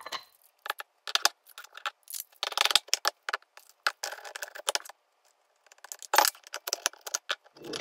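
Steel planetary gear set and drum parts of a 48RE/47RH automatic transmission clinking and scraping together as they are handled and fitted by hand. Irregular clinks, with a short pause about five seconds in.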